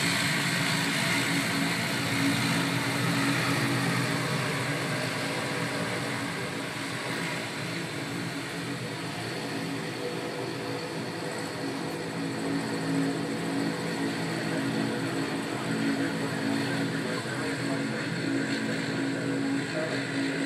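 Propeller airliner's engines running on the ground: a steady drone with a low hum, dipping slightly in loudness midway.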